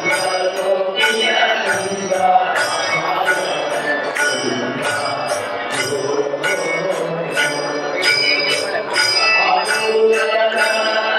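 Hindu devotional music: voices chanting over bells struck in a steady beat, about two strikes a second.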